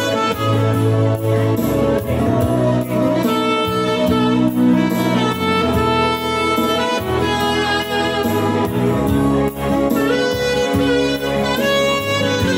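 Saxophone playing the lead melody over electronic keyboard accompaniment with a steady programmed beat.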